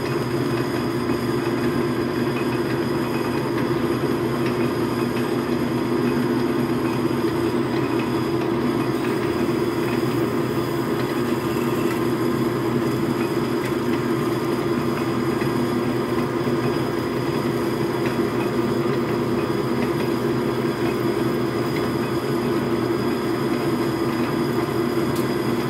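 Logan metal lathe running steadily while a new jobber drill bit in the tailstock chuck bores into the spinning workpiece, drilling quickly. The motor and drive give an even hum with constant tones.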